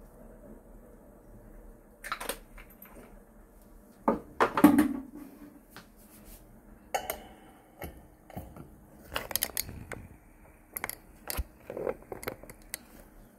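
Irregular clicks, knocks and rustling of pillows, bedding and small objects as a kitten clambers about a headboard shelf and is played with. The loudest burst comes a little over four seconds in.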